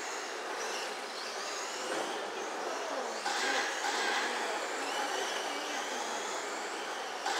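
1/10-scale RC racing trucks running laps on a dirt oval, their motors whining in pitches that rise and fall as they accelerate and slow, over a steady hiss of tyres on dirt.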